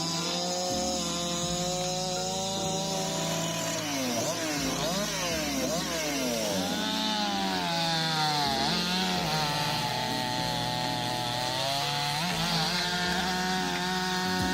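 Chainsaw engine running while cutting wood, its pitch repeatedly rising and falling as it revs and slows under load.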